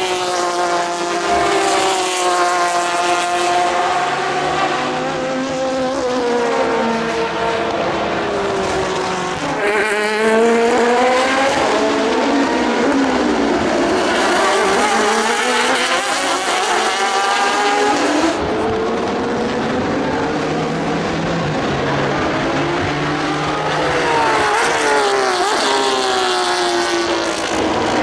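Porsche 991 RSR race cars' naturally aspirated flat-six engines passing at race speed, one pass after another. The engine pitch climbs through upshifts and drops away as each car goes by. The sound changes abruptly twice.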